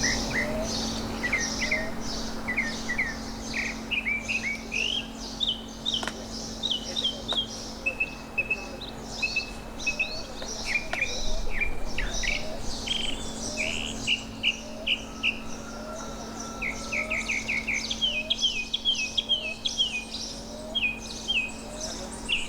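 Northern mockingbird singing: a long run of varied phrases, each repeated several times in quick succession before it switches to the next. A steady low hum and a faint low note, repeating about once a second, sit underneath.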